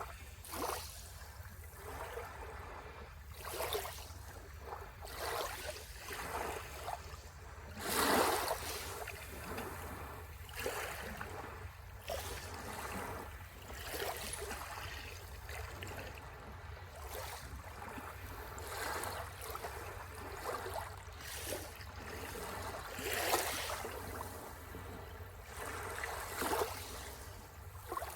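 Sea waves washing onto the shore in irregular surges every few seconds, the biggest about eight seconds in, over a steady low rumble.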